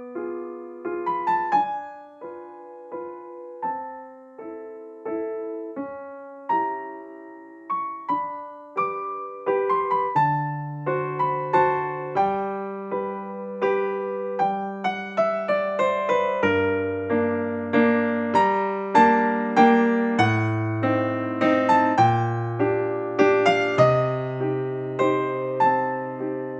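Background music: a gentle electric piano melody of struck notes, with bass notes joining about ten seconds in.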